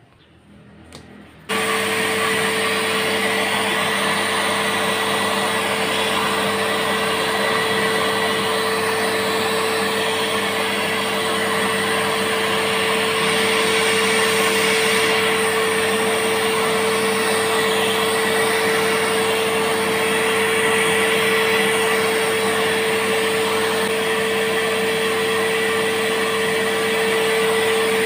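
Akira canister vacuum cleaner switched on about a second and a half in, then running steadily with a strong even hum as its hose sucks up debris from the floor. It sucks well now that its filter and dust container have been cleaned.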